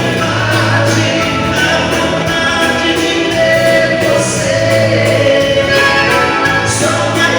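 Live dance-band waltz music with singing, sustained bass notes and held chords.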